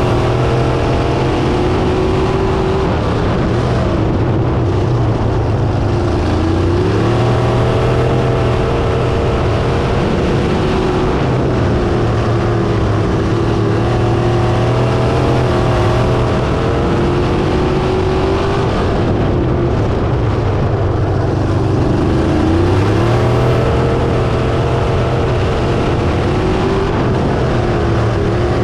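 Crate sprint car's V8 engine at racing speed, heard from inside the car. The engine note drops and then rises again every four seconds or so as the car goes around the dirt oval.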